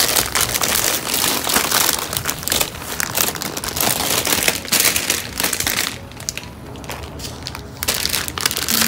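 Plastic produce bags crinkling and rustling as gloved hands sort through and lift bagged vegetables. The rapid crackling quiets about six seconds in, then comes back in a short burst near the end.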